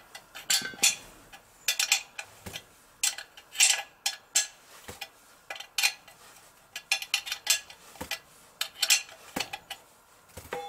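Irregular sharp metallic clicks and clinks of a hex key and small steel parts knocking against the aluminium crankcase of a Yamaha XS650 engine as a bolt is worked out by hand.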